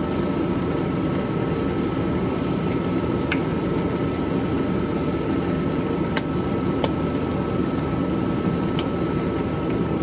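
A steady fan-like whirring hum with a faint high whine running through it, and a few faint light clicks.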